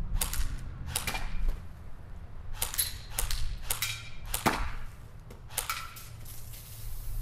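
Semi-spaced shots of BBs from a CYMA CM028C airsoft gun striking full aluminium drink cans: about a dozen sharp cracks and pings at irregular intervals. Near the end a punctured can sprays with a faint fizzing hiss.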